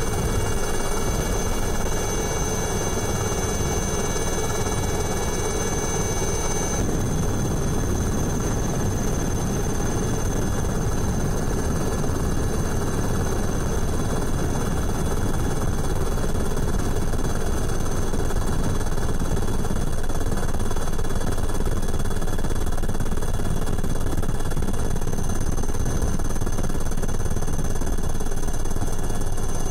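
Helicopter in flight: steady rotor beating with a dense low pulsing and thin steady high whining tones. The high tones thin out about seven seconds in.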